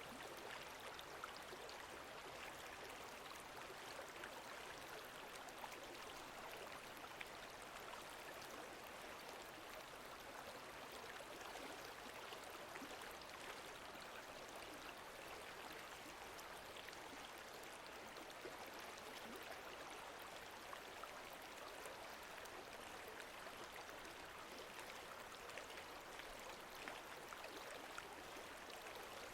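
Faint, steady lake water lapping, with many tiny splashes and trickles and no pauses.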